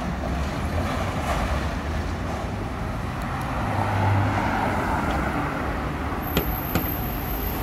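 Porsche 911's flat-six engine as the car drives past at low speed through city traffic, its sound swelling about four seconds in as it goes by and then fading away, over steady street traffic noise.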